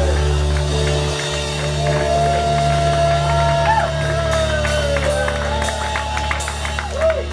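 Live rock band with guitar, bass and drum kit holding a long, steady low chord while the drummer strikes the cymbals, more often in the second half, with crowd voices underneath.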